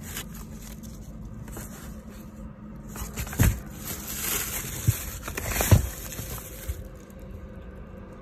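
Handling noise from paper-wrapped aerial firework shells being picked up and moved close to a phone's microphone: rustling and scraping of the paper, with a few dull bumps.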